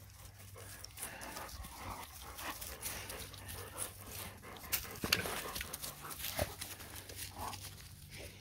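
Dog panting close by, with scattered rustling and ticking in dry leaves and grass.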